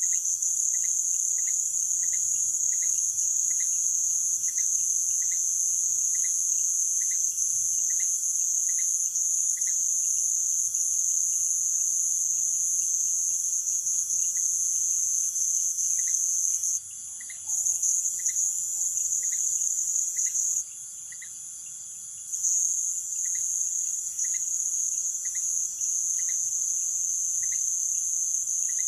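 Night insect chorus of the Amazon rainforest: a loud, continuous, high-pitched buzzing trill that cuts out briefly twice past the halfway point and then resumes. Under it a separate lower chirp repeats about every two-thirds of a second, pausing for a few seconds in the middle.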